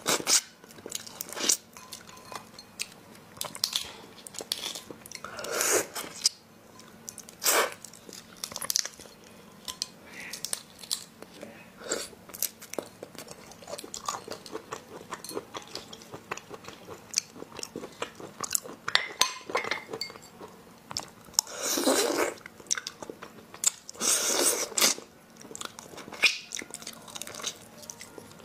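Close-miked eating of raw sweet shrimp: chewing, biting and small crunches in a steady run of little clicks and crackles, with a few longer, louder sounds, two of them close together near the end.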